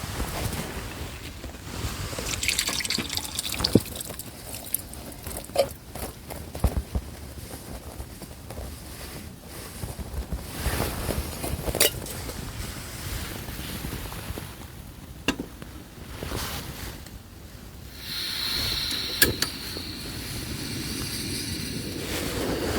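Liquid being poured and trickling, with scattered clinks and knocks of camp cookware and utensils. A steadier hiss comes in near the end.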